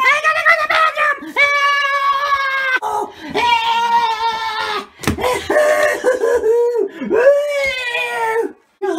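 A high-pitched child's voice wailing in a string of long, drawn-out cries, each about a second long, with short breaks between them.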